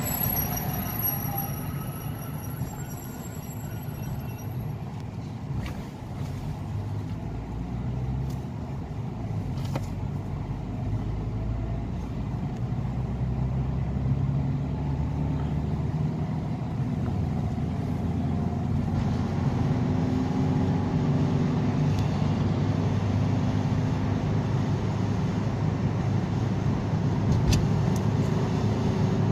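Car engine and tyre noise heard from inside the cabin while driving, a steady low rumble that grows a little louder in the second half.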